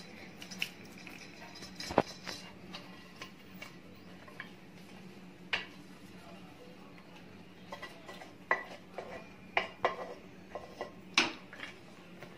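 A spatula clicking and scraping against a metal cooking pot: scattered sharp knocks, with a run of them close together in the last few seconds. A faint steady low hum lies underneath.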